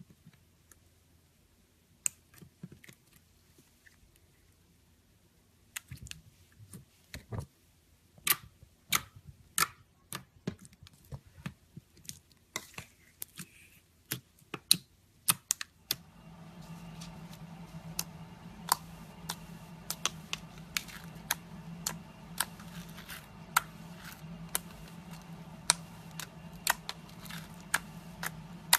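Slime being handled, giving irregular sharp clicks and pops, sparse at first and then coming faster. About halfway through, a steady low hum starts under the clicking.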